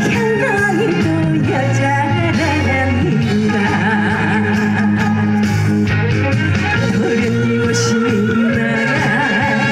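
A song performed live: a woman singing over loud band music.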